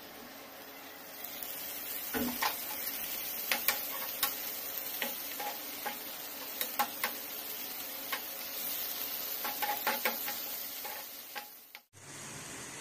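Chopped onions and tomatoes sizzling in a nonstick frying pan as a metal spatula stirs them, with frequent sharp clicks and scrapes of the spatula against the pan. Near the end the sound cuts out briefly and a steadier hiss of frying follows.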